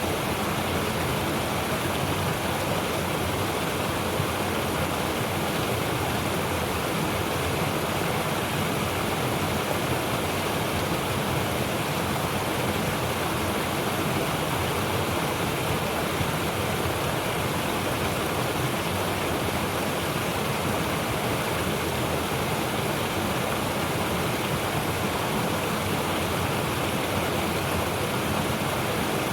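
Mountain stream rushing steadily over rocks, an unbroken, full water noise with a deep low rumble.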